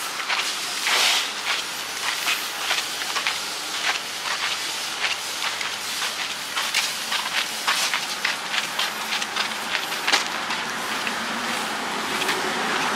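Steady rushing hiss with many short, irregular crackles.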